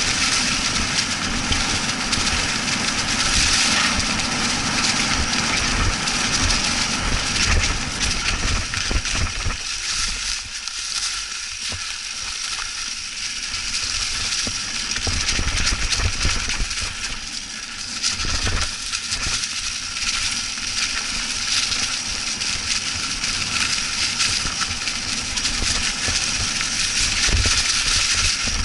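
Mountain bike ridden along a leaf-covered dirt singletrack: tyres crunching and hissing through dry fallen leaves over a constant rumble and rattle from the rough trail. It eases off briefly twice in the middle.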